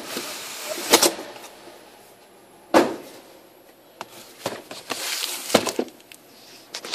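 Cardboard shipping box being handled on a table: a few knocks as it is set down and turned, with cardboard scraping and rubbing between them.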